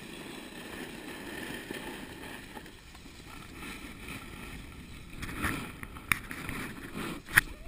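Steady rushing of wind over a moving camera's microphone, mixed with the hiss of riding over packed snow, and a few sharp knocks in the second half.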